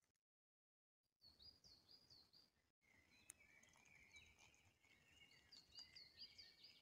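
Faint birdsong from several small birds: repeated short high chirps starting about a second in, joined about three seconds in by a lower run of quick notes.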